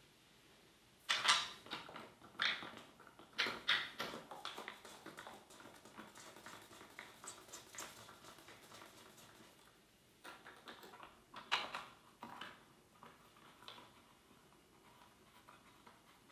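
Handling and screwing down a plastic motorcycle windscreen: scattered light clicks, taps and knocks of the screen and its screws, in a few short bunches with quieter gaps between.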